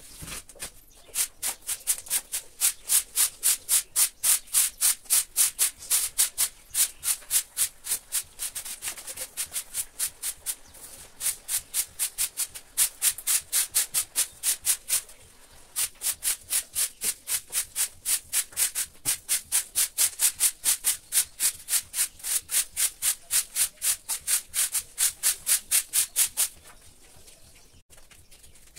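A broom sweeping a rough concrete floor in quick, even strokes, about three a second. The sweeping pauses briefly twice and stops near the end.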